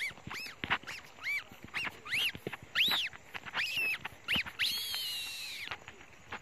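A bird's repeated short, high, arching calls, roughly two a second, with one longer held call just before the end.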